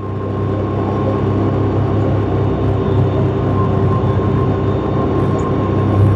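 Yamaha YXZ 1000's three-cylinder engine running at steady revs while the side-by-side cruises at about 33 mph, heard from the driver's seat. It gets louder over the first second, then holds a steady note.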